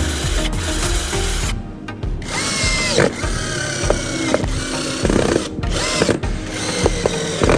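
A handheld power tool whining in short runs several times, its pitch dropping each time it winds down, over background music.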